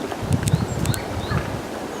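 Tits calling with short, high chirps, with a few sharp clicks and wind gusting on the microphone.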